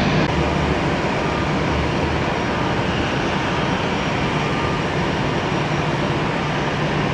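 Steady, loud rushing noise of aircraft engines on an airfield, easing very slightly.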